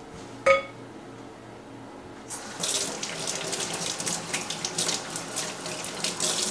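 A light ringing clink about half a second in, then a kitchen faucet running into the sink for about four seconds, stopping near the end.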